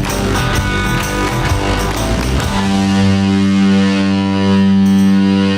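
Rock music with a drum beat. About two and a half seconds in, the beat drops out under a long, steady low note that breaks off briefly near the end and then comes back.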